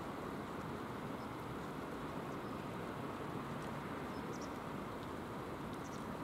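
Steady rushing of the river's flowing water, even and unbroken, with a couple of faint high chirps about four and six seconds in.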